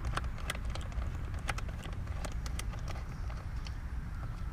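Irregular light clicks and ticks of a hand screwdriver turning screws out of a scooter's plastic body shroud, over a steady low rumble.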